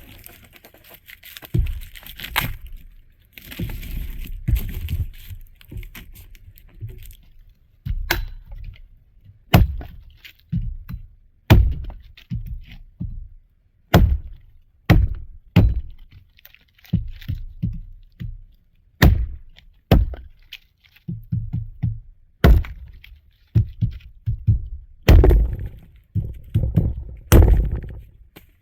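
Firewood being chopped: a long run of sharp chopping blows, about one a second, some in quick pairs.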